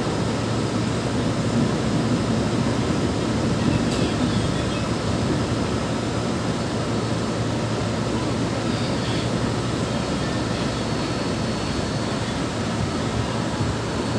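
Electric commuter train running at speed, heard inside its carriage: a steady rumble of wheels on the rails and the running gear.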